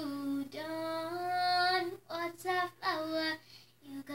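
A nine-year-old girl singing a country ballad unaccompanied, in long held notes with short breaks between phrases.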